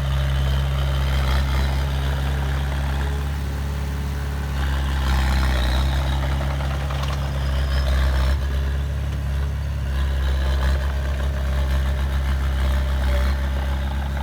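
Heavy equipment's engine running steadily: a low, even engine hum, with extra higher-pitched mechanical noise for a few seconds in the middle.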